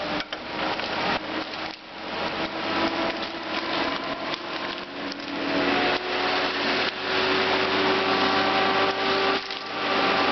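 Timbco tracked feller buncher at work: its engine and spinning saw head make a steady whine over a rush of noise as the head cuts through trees. The sound dips briefly about two seconds in and again near the end.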